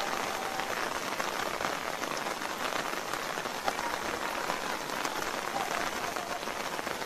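Steady rain falling on wet paving and puddles, an even hiss with scattered drop patter.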